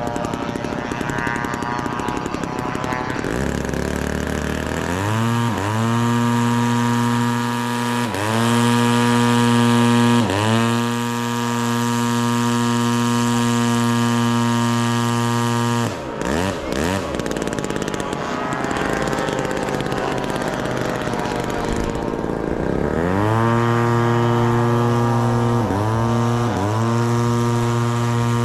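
Radio-control model airplane engine running loud and steady. It climbs in pitch about four seconds in, then holds with short dips and recoveries. It breaks off briefly midway, with other engines sliding past, and settles back to steady running near the end.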